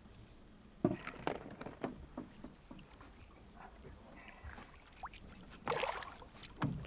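A hooked peacock bass thrashing and splashing at the surface beside a boat, loudest near the end, with a sharp knock about a second in.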